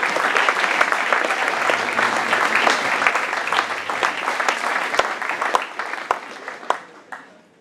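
Audience applauding at the end of a play, the clapping thinning out toward the end to a few scattered claps before it stops.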